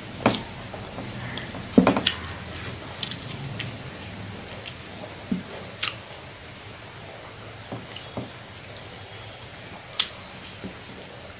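Eating sounds: wet chewing and smacking of a mouthful of spicy pork, rice and greens eaten by hand. Scattered sharp smacks and clicks come at irregular moments, the loudest about two seconds in.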